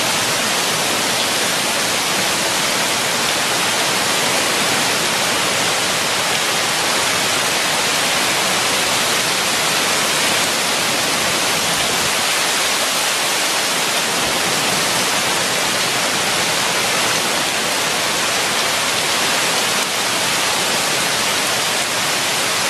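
Heavy hurricane rain falling on asphalt pavement: a steady, even hiss.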